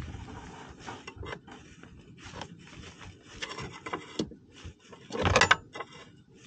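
Hand tools scraping, rubbing and clicking against metal in an irregular run as a stuck part on a skid steer is worked loose, with the loudest scrape about five seconds in.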